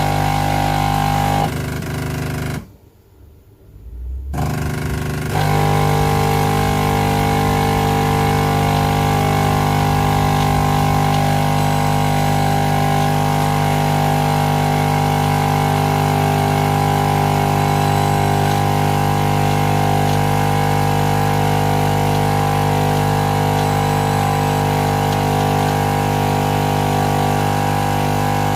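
Jura Impressa F8 coffee machine running with a loud, steady motor hum. It stops for about a second and a half near the three-second mark, then starts again and runs steadily on.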